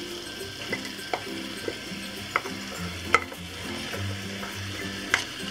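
Chicken in a coconut-milk red curry sauce sizzling in a frying pan. Over it come several sharp clicks and taps, the loudest about three seconds in, as tomato and onion chunks are tipped and scraped off a metal pie tin into the pan.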